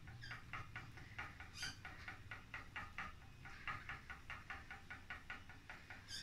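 Spinning wheel turning under the treadle, putting twist into the yarn: a faint, even, rapid ticking of about five to six ticks a second over a low steady hum, with a few sharper clicks.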